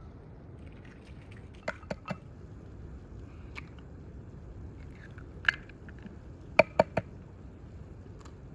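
Eggshells tapped and cracked: three quick light taps about two seconds in, one louder tap around five and a half seconds, and three quick taps near seven seconds, over a low steady background hum.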